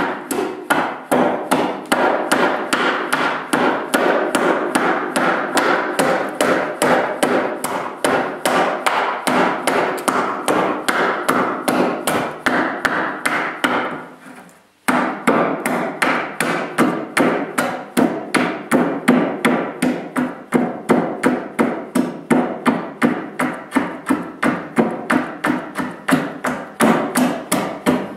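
Hand axe hewing the edge of a wooden boat plank held upright on a chopping block: quick, steady chops of the blade into the wood, about three a second, with a brief break about halfway through.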